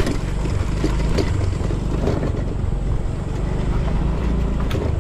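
Scooter riding slowly over a loose gravel road: the small engine running under steady wind rumble on the microphone, with a few faint clicks from the tyres on the stones.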